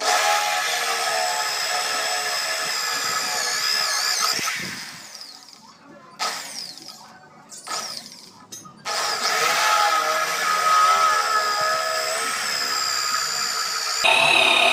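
Corded electric hand drill boring a hole through a steel plate: a steady motor whine with the bit cutting the metal. It runs about four seconds and winds down, comes back in two short trigger bursts, then runs steadily again from about nine seconds in, its pitch shifting near the end.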